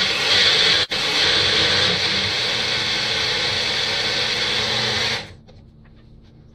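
Magic Bullet personal blender motor running as the cup is pressed down, blending kale, celery and apple with a little water. It runs for about five seconds, cutting out for an instant about a second in, then stops.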